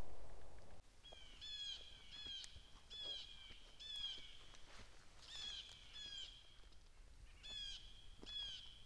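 The echo of a pistol shot fades away in the first second. Then a bird calls over and over, about a dozen short pitched calls in small runs.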